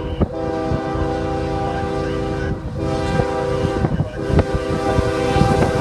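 Horn of a BNSF freight train led by GE ES44DC locomotive #7783, sounding a multi-note chord in long blasts broken by short gaps about 2.5 and 4 seconds in. Under it is the rumble and clatter of the passing train.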